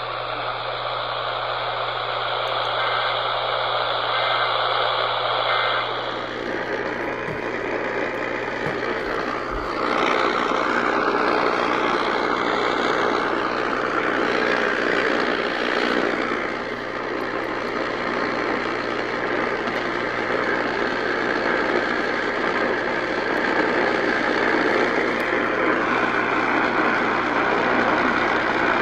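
Steady hiss of radio static over a constant low hum, with no voice; the hiss turns brighter about six seconds in.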